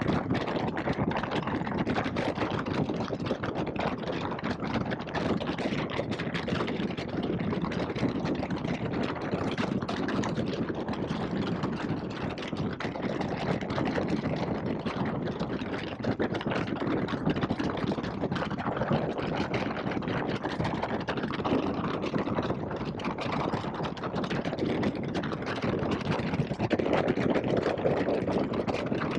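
2021 Indian Scout Bobber's V-twin engine running steadily on the move, picked up by a helmet-mounted headset microphone along with wind and road noise.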